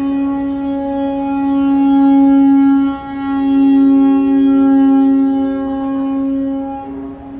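A wind instrument holds a long steady, horn-like note. It breaks briefly about three seconds in, then comes back with a second, higher note sounding alongside it until it fades near the end.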